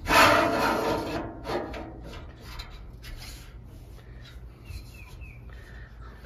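A burst of rustling and scraping from handling the metal griddle stand and clearing packing out of it, loudest in the first second, followed by a shorter scrape. Quiet handling follows, with three short falling bird chirps about five seconds in.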